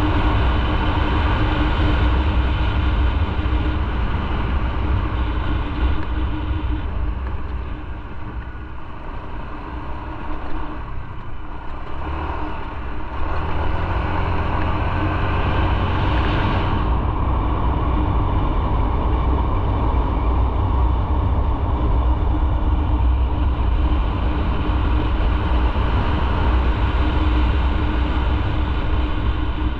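Motorcycle engine running with road and riding noise while under way; it eases off and quietens for a few seconds near the middle, then picks back up.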